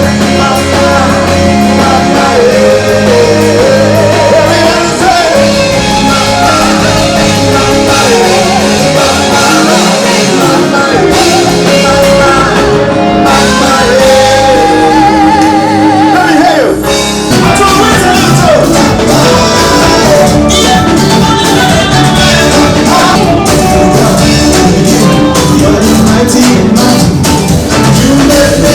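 Live gospel worship song played loud by a band, with a lead vocal singing over it.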